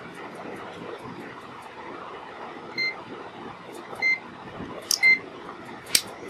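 UNI-T UT203+ clamp meter giving three short, high beeps in the second half as its rotary function dial is turned and its buttons pressed, with sharp clicks from the dial and buttons.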